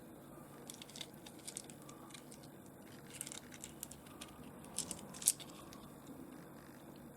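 Faint clicks and light taps of small rough opal pieces being handled and moved against each other, the sharpest click a little past five seconds in.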